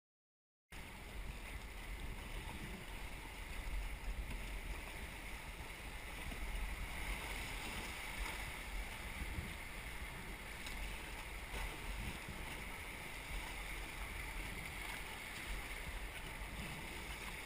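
Steady rush of river water with wind buffeting the microphone during river rafting, starting abruptly just under a second in.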